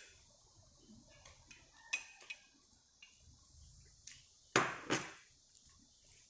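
Metal spoon clinking lightly against a glass bowl a few times, then two louder, sharp knocks of tableware on a stone tabletop about four and a half seconds in, over a steady faint hiss.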